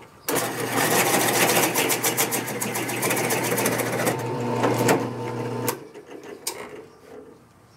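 A hole saw in a drill press cutting into a thick block of very hard wood: a steady motor hum under a loud, rasping cut for about five seconds. It stops abruptly as the saw is pulled up out of the hole, one plunge of the up-and-down pecking needed to clear chips so the saw doesn't bind and overheat.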